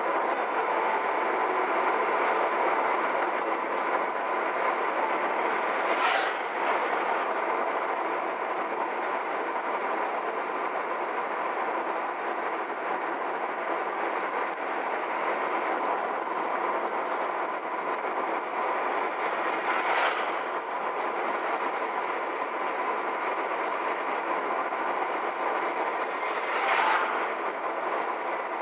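Steady tyre and road noise of a moving car, heard from inside the cabin, with a faint steady hum running through it. Three brief swishes of noise stand out, about six, twenty and twenty-seven seconds in.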